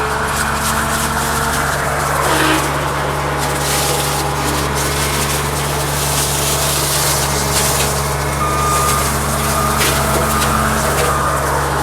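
Cat 279D compact track loader's diesel engine running steadily under load, with a high hiss and scattered sharp cracks throughout. A few short beeps sound in the second half.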